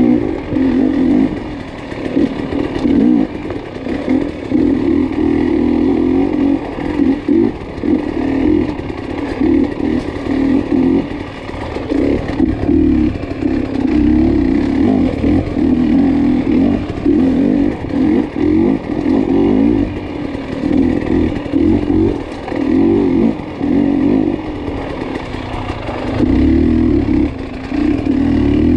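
Dirt bike engine revving in short bursts, the throttle opened and shut every second or two as the bike is ridden over rough ground.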